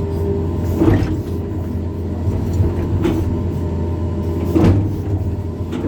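A hydraulic excavator's diesel engine runs steadily under load with a faint hydraulic whine, while the machine shapes a pond slope. Three clunks from the arm and bucket sound about a second, three seconds and four and a half seconds in.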